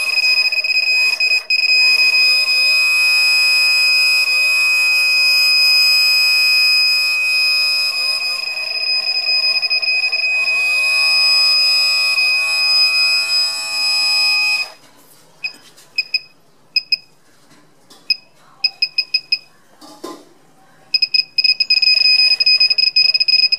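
A high electronic buzzer tone sounds steadily for about fifteen seconds over a lower layered hum that swells up every couple of seconds, then breaks into short irregular beeps and holds steady again for the last few seconds.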